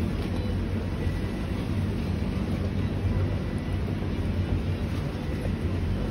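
Steady low rumble of outdoor background noise, even throughout with no distinct events.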